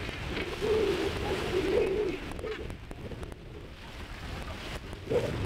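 Wind on the microphone and sea noise aboard a boat. A wavering low hum rises over it for about two seconds near the start and briefly again near the end.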